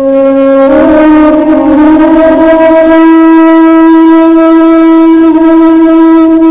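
Background music: a wind instrument holds one long, loud note, stepping up slightly in pitch just under a second in.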